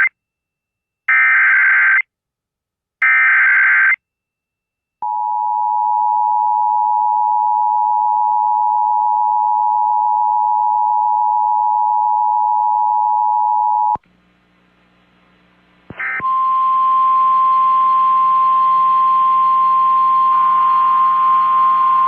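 Emergency Alert System tones. Two one-second screeching bursts of SAME header data, a second apart, are followed by the two-tone attention signal, held steady for about nine seconds. It cuts off, and after a moment of hiss a single steady warning tone begins over a humming, noisier background.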